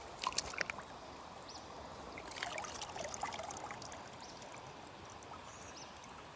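Creek water flowing and trickling faintly, with a few sharp clicks in the first second and a slightly louder splashy patch about halfway through.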